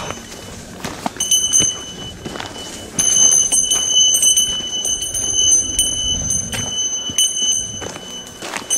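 Bear bell jingling with the hiker's steps, a high ringing struck again and again from about a second in, over footsteps on the trail.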